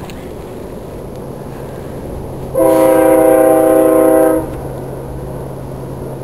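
Diesel freight locomotive's multi-chime air horn sounding one long blast of about two seconds, a little over two seconds in, over the steady rumble of the passing train.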